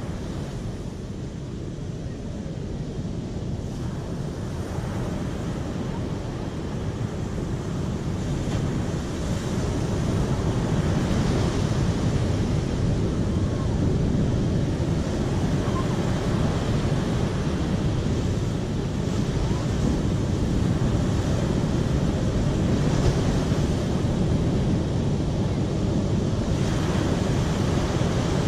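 Water rushing in a dense, steady wash, heavy in the low end, swelling and growing louder over the first ten seconds or so.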